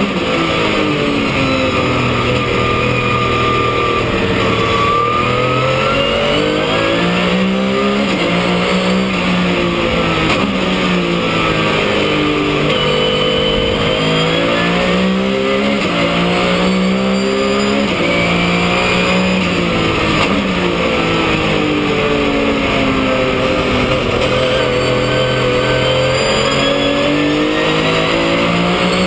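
Porsche 997 race car's flat-six engine under hard driving, its pitch climbing as it pulls through the gears and dropping as it brakes and downshifts, over and over.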